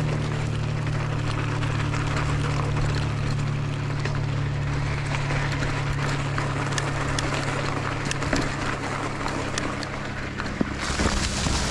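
Mountain bike rolling over a loose gravel track: tyres crunching on stones and small rattles and clicks from the bike, with a steady low hum in the first half that fades out. A rush of hiss comes in near the end.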